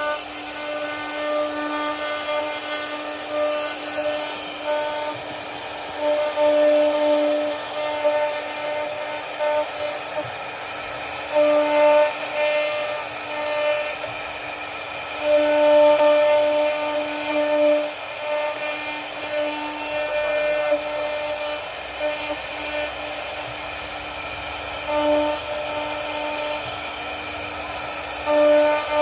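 CNC router spindle running at a steady high pitch while its bit carves a wooden door, the whine and cutting hiss swelling louder several times as the cutter bites deeper into the wood.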